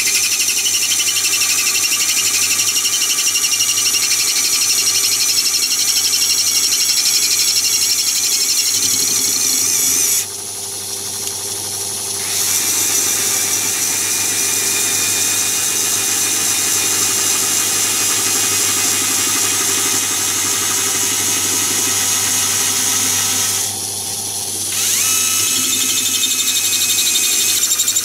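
Small cordless screwdriver motor whining steadily as it winds the cross-slide feed of a Myford ML7 lathe, over the lower hum of the running lathe. The whine stops twice for a second or two while the lathe keeps running.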